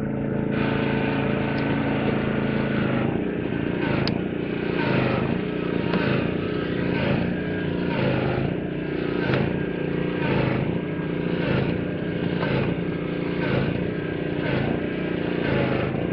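An engine running steadily, with a slight surge about once a second.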